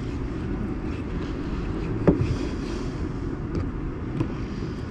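Steady low background rumble, with a few short faint knocks, the clearest about two seconds in.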